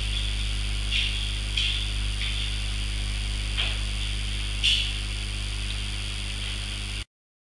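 Steady electrical hum with a high buzzing hiss over it, and a few short clicks in the first five seconds. It cuts off suddenly near the end.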